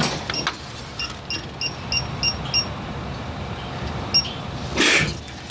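Electronic refrigerant leak detector beeping in short, evenly spaced high beeps, about three a second, then once more later, as it picks up refrigerant at leaking joints; a steady low hum runs underneath, with a brief rustle near the end.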